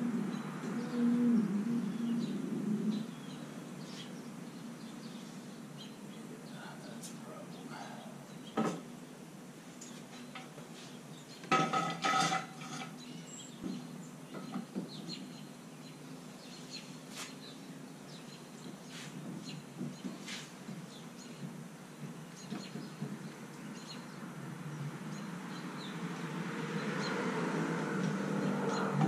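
Scattered knocks and clicks of metal and wood being handled, with one ringing metallic clank about twelve seconds in, as steel jack stands are set under a hoisted boat's frame. The first few seconds are louder, while the hoist rope is gripped.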